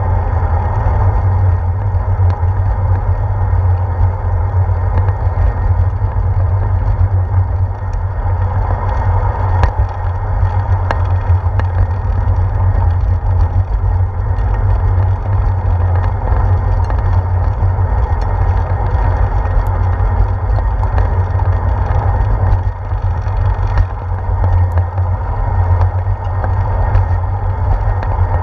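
Steady low rumble of wind and road vibration picked up by a handlebar-mounted GoPro Hero 4 as a bicycle rolls along a paved trail, with a few faint clicks.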